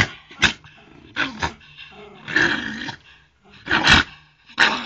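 Dog growling angrily in a series of short bursts, the loudest a little before the end.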